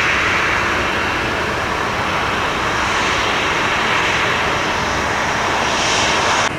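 Jet airliner engines running, a steady broad rush of noise that cuts off suddenly at the end.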